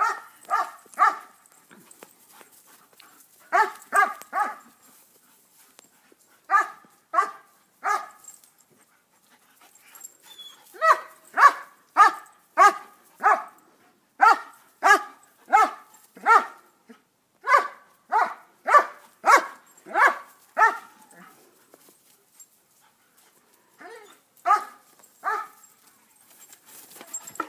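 German shepherd barking in short groups of about three barks, then a long run of steady barks at about two a second, then another group of three near the end.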